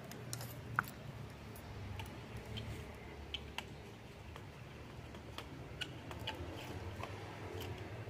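Low steady hum under scattered, irregular light clicks and ticks, with one sharper click about a second in.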